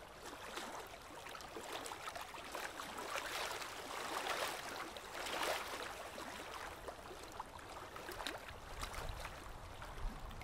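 Small waves lapping and sloshing around a camera held at the water surface, in gentle surges that swell and ease.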